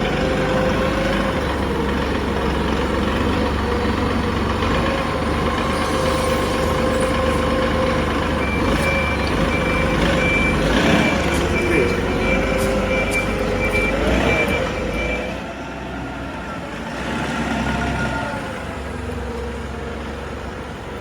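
Heavy diesel vehicle running, with its reversing alarm beeping in steady pulses for several seconds in the middle. The engine sound eases off after about fifteen seconds.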